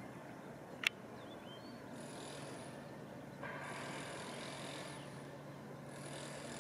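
Outdoor ambience with a low, steady engine hum that sets in a couple of seconds in, washes of hiss coming and going, and one sharp click just under a second in.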